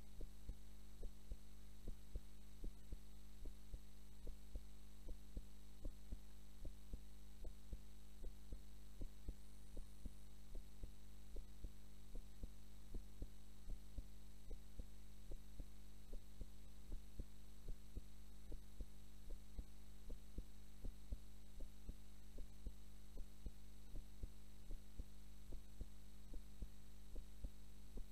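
A sleeping woman's heartbeat picked up close against her chest: a slow, regular lub-dub, each beat a pair of soft low thumps, over a steady low hum.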